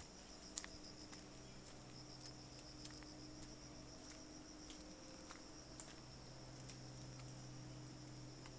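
Faint, steady high-pitched chirring of insects in the forest, with a few soft clicks.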